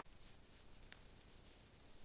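Near silence, with a couple of faint soft clicks.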